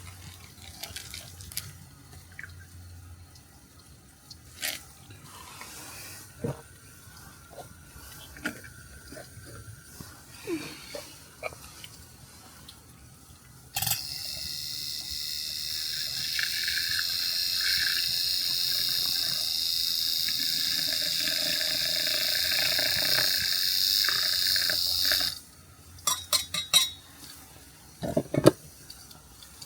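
Water running into a container for about eleven seconds, starting and stopping abruptly, with scattered light clicks and clatter of kitchen items before and after.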